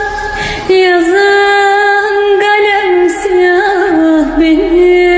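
A woman singing a Turkish song solo, holding long notes decorated with quick ornaments and small pitch turns; a new phrase begins under a second in.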